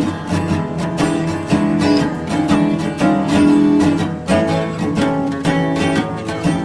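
Background music: acoustic guitar, strummed and plucked.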